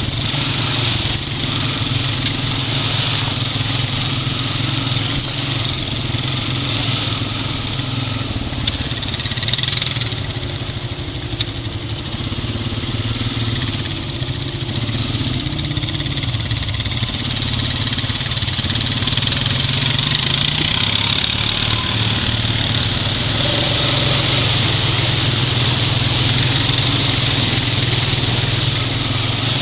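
Honda Rancher 420 ATV's single-cylinder four-stroke engine running steadily at trail speed, easing off slightly around the middle before picking back up.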